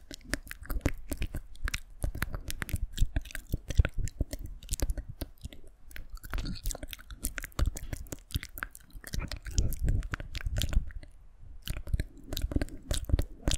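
Close-miked ASMR mouth sounds: rapid, irregular wet clicks and smacks, with short lulls about six and eleven seconds in.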